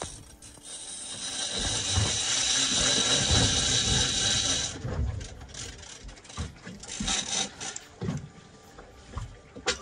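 A fishing reel paying out line to a hooked shark: a steady, high-pitched buzz of the drag for about four seconds, then it stops and gives way to scattered clicks and knocks.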